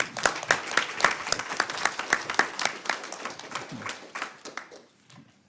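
Audience applauding after a talk ends, the clapping thinning out and dying away near the end.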